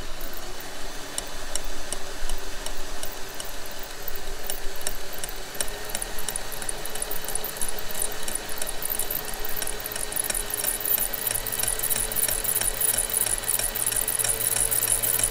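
Cordless drill spinning a piston-ring gap filer's abrasive wheel, with a ring end held against it: a steady motor whine that rises slightly in pitch over a fast, fine scraping chatter as metal is ground off. The oversize top ring is being file-fitted to open its end gap.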